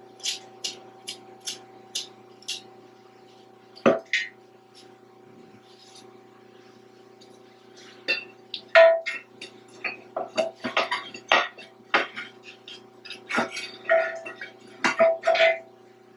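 Metal clinking and knocking of hand tools and steel parts being worked on a walk-behind roller's drum assembly. A run of light, evenly spaced clicks in the first couple of seconds, one heavy knock about four seconds in, then a busy stretch of ringing metallic clanks through the second half, over a faint steady hum.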